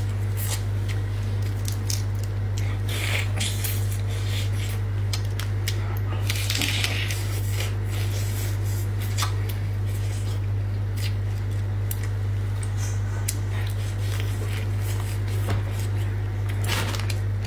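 Close-miked eating of crab: sucking and picking meat out of the shell, with scattered short clicks and smacks and a longer noisy slurp about six and a half seconds in, over a steady low hum.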